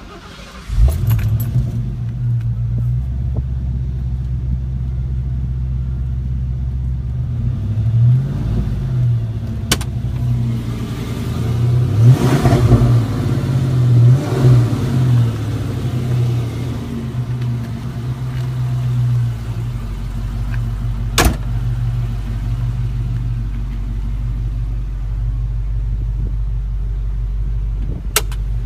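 1990 Ford Mustang GT's 5.0-litre V8 starting about a second in, then idling steadily. The engine is revved up a few times in the middle and settles back to idle.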